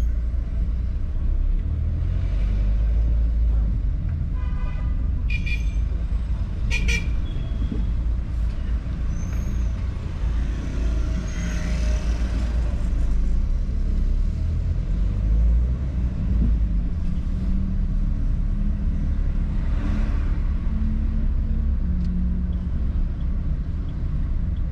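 City traffic: a steady low rumble of car engine and road noise, with a few short car horn toots a few seconds in.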